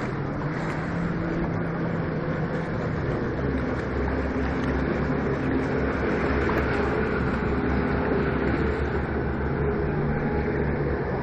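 Twin Honda 90 hp four-stroke outboard motors running under way, their propellers churning up wash behind the boat. The low engine rumble grows stronger about three seconds in.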